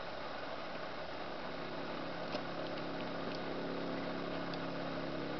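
Steady outdoor background hiss with the faint, steady drone of a distant motor, which fades in about a second and a half in. A few faint taps come through over it.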